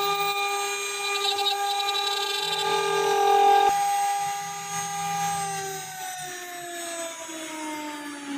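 CNC engraving machine's spindle motor whining at a steady high pitch, then from about five seconds in the pitch falls steadily as the spindle slows down. A single sharp click comes about halfway through.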